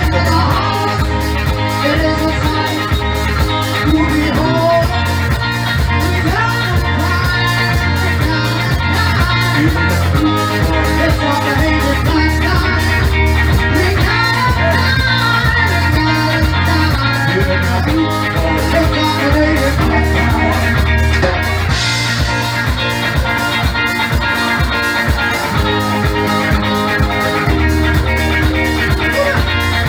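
Upbeat calypso band music, a drum kit keeping a steady beat over a repeating bass line.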